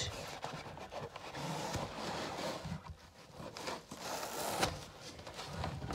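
Cardboard and plastic model-train packaging being handled: light scraping and rustling as a boxed locomotive's sleeve and tray are slid apart, with a couple of louder rustles and faint knocks.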